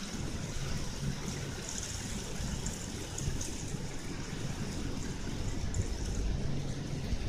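Heavy rain falling steadily in a thunderstorm downpour.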